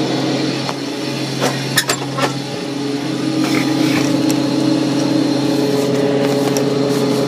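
Combine harvester running steadily with a constant machine drone, heard from inside the cab. A few sharp clicks and knocks come about one and a half to two seconds in, and the drone's pitch steps up slightly about three seconds in.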